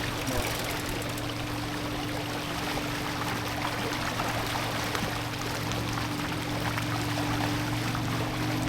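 Water rushing and splashing along a sailboat's hull as it sails under spinnaker, steady throughout, with a constant low hum underneath.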